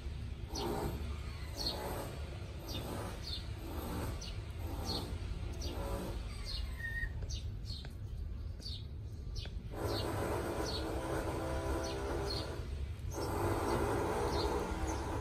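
Sphynx cats purring while a kitten nurses. The purr comes in rhythmic pulses at first and grows louder and fuller about two-thirds of the way through. Short high chirps repeat about once a second over it.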